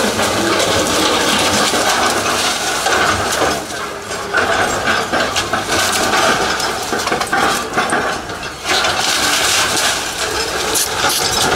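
Hydraulic excavator demolishing a concrete-block house: its diesel engine runs while masonry and debris crack and clatter down almost continuously.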